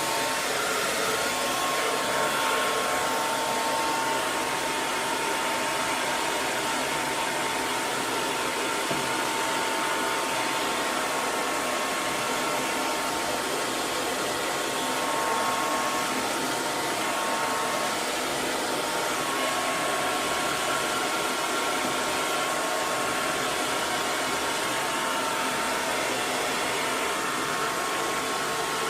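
Hair dryer running steadily: an even rush of blown air with a faint motor whine.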